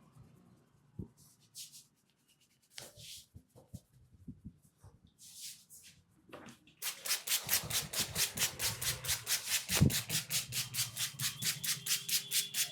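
A massaging hands rubbing over a head: a few soft, scattered strokes, then from about seven seconds in a fast, even back-and-forth rubbing at about six strokes a second.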